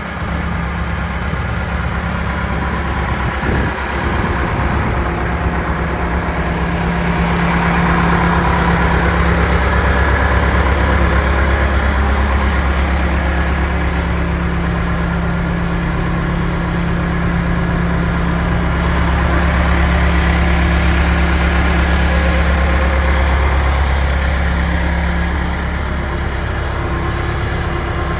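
Case 580 Super K backhoe's four-cylinder diesel engine running steadily, growing somewhat louder twice, with a brief knock early in.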